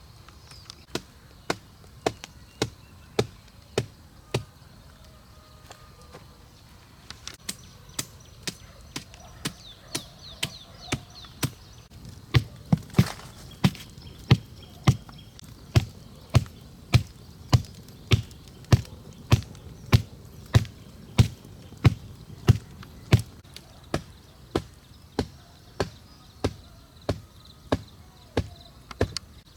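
Steady chopping with a blade, each stroke a sharp crack with a dull thud, about two strokes a second. A few strokes come first, then a short pause, then an unbroken run that is loudest in the middle.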